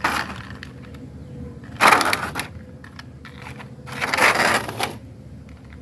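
Small toy cars and their plastic packaging being handled, in three short clattering, rustling bursts.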